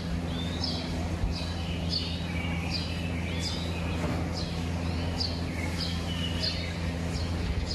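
Small birds chirping over and over, short high chirps about every half second, over a steady low machine hum.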